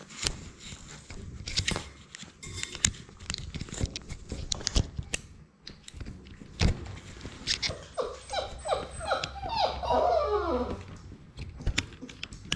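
Labrador puppy mouthing a GoPro at close range, its teeth and muzzle knocking and clicking on the camera. About eight seconds in it gives a quick run of short, falling whines for about three seconds.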